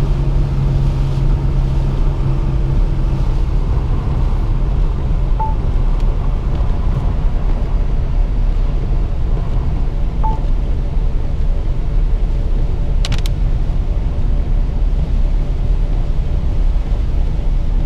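A car driving on a rain-soaked road, heard from inside the cabin: a steady low rumble of tyres on wet pavement and the engine, with the heavy rain. A brief sharp click comes about two-thirds of the way through.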